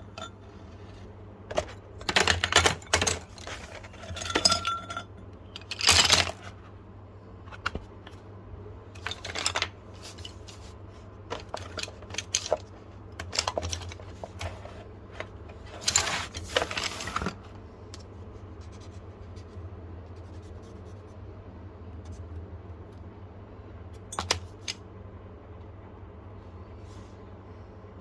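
Small hard craft objects being handled on a tabletop: scattered clicks and clatters with short bursts of scraping, most of them in the first two-thirds, over a steady low hum.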